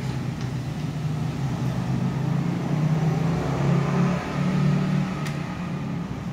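A steady low machine hum, like a fan or air-conditioning unit, with a soft rubbing sound that swells in the middle as leather dressing is spread by hand over a leather saddle.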